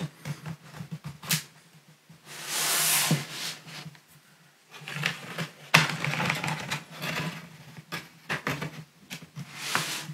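Plastic retaining clips of a Lenovo Legion 5 Pro laptop's rear cover snapping loose as a plastic pry tool is worked along the seam: sharp clicks between stretches of plastic scraping along the edge. The clips are stiff.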